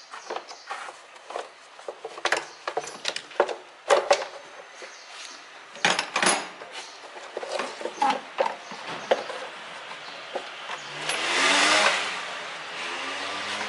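Plastic air filter housing being unclipped and worked loose by hand, with a run of sharp clicks, knocks and rattles. About eleven seconds in, as the housing comes free and is lifted out, a louder rushing noise swells and fades.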